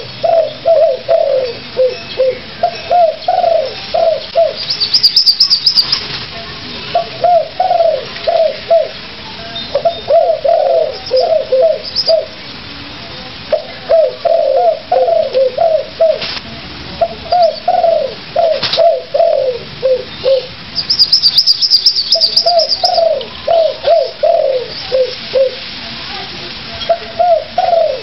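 A dove cooing loudly in repeated phrases of several quick notes, with short pauses between phrases. A small bird gives a brief, high, fast trill twice.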